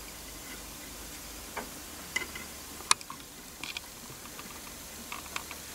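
A few sparse light clicks and ticks of small metal parts as steel disc springs are fitted by hand onto the end of an ACME lead screw, over a low steady hum.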